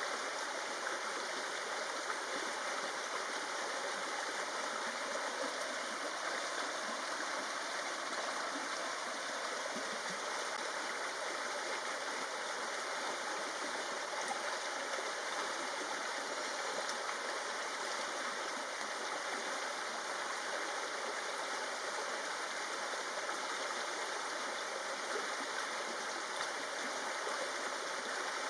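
Steady rushing of running water, like a forest stream, unchanging throughout.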